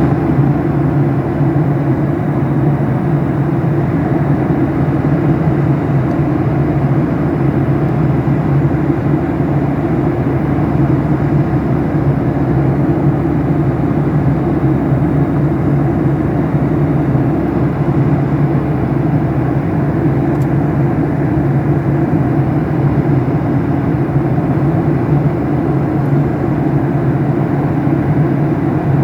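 Steady drone of a passenger airliner in flight, engine and airflow noise heard from inside the cabin.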